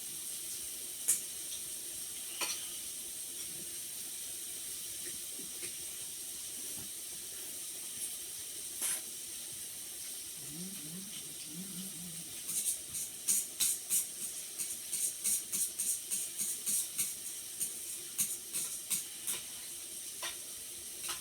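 Hot pot broth simmering with a steady hiss. Over the second half, a run of quick, sharp crackling clicks joins in.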